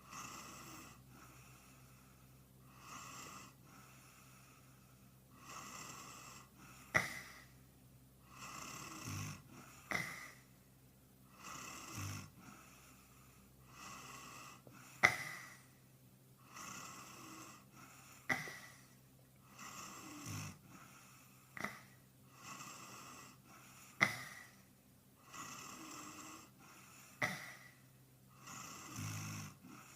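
A man snoring in his sleep, one snore about every three seconds, with sharp clicks on several of the breaths. The recording is sped up and pitched higher, nightcore style.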